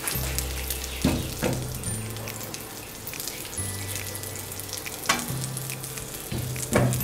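Butter melting in hot cooking oil in a nonstick pan, sizzling steadily as the base of a white sauce (roux) heats. A silicone spatula stirs through it, with a few sharp scrapes or taps against the pan.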